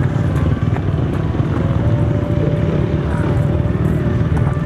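Motocross bike engines running, a steady low drone with no letup.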